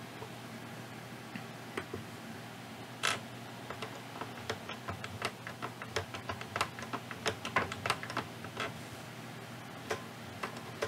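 Irregular plastic clicks and taps from an FrSky Horus X10S Express transmitter's gimbal sticks and controls being pushed to their limits during stick calibration, coming thick and fast in the middle of the stretch, over a faint low hum.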